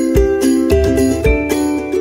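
Background music with a steady beat and held, bright pitched notes.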